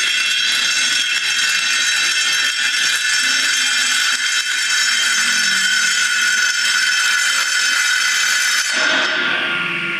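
Panel saw with a 7.5 kW three-phase motor running, its blade giving a loud high-pitched whine, with a rattle from a small beech block trapped between the spinning blade and the rip fence: the set-up that leads to kickback. Near the end the saw is switched off and the high whine drops away as the blade starts to run down.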